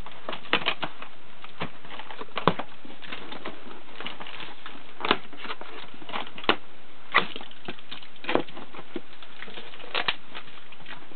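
Cardboard shipping box being opened by hand: a knife slitting the packing tape and the cardboard flaps being pulled and handled. The sound is a scratchy rustle broken by irregular sharp clicks and snaps.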